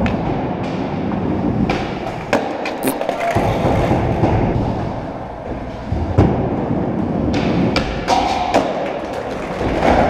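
Skateboard wheels rolling over a concrete floor, with scattered clacks and thuds of boards hitting the ground; the sharpest clack comes about six seconds in.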